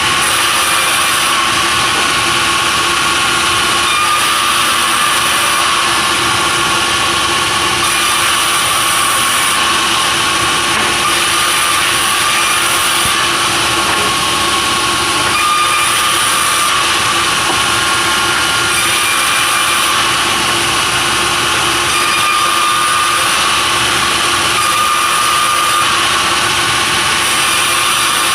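Sawmill machinery running continuously while cutting timber, a steady loud mechanical noise with a constant whine and a high hiss that comes and goes every second or two.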